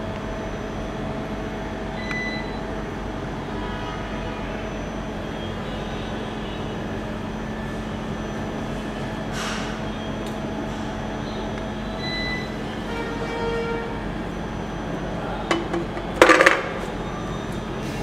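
Steady machinery hum and room noise with a constant low drone. There is a brief hiss about halfway through and a short clatter of sharp clicks and knocks near the end.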